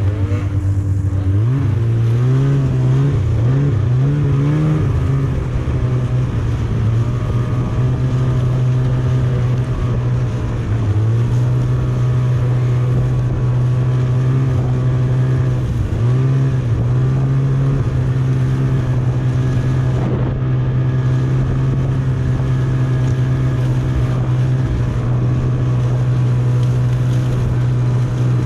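Snowmobile engine running hard and steadily at speed. Its pitch rises and falls several times in the first few seconds as the throttle is worked, then dips briefly about 11 and 16 seconds in before settling back.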